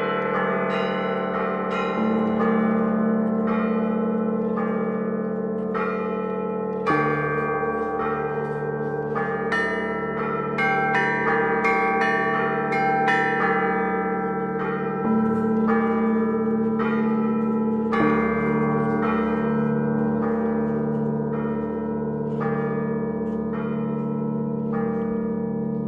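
Russian Orthodox church bells rung by a bell-ringer in a continuous peal. Quick strokes on the small bells ring on into each other over the hum of the larger bells, and deeper bells are struck afresh every few seconds.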